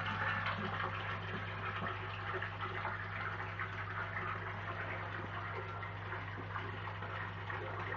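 Water churning and bubbling steadily in a tank of young koi, stirred by an aerator or inflow, over a steady low hum.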